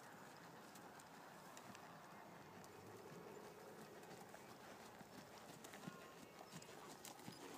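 Faint hoofbeats of an American Quarter Horse moving under saddle on a sand arena, irregular soft footfalls.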